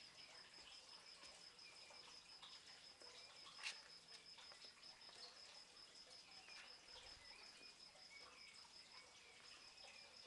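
Faint outdoor ambience: an insect's steady, high, pulsing trill, with scattered short bird chirps. A single sharp click comes a few seconds in.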